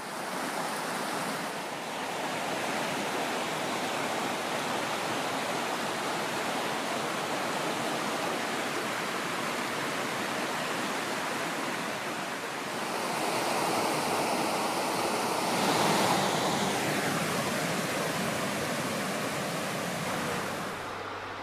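Small, fast-flowing river rushing and splashing over boulders in white-water runs, a steady rush that grows a little louder about two-thirds of the way through.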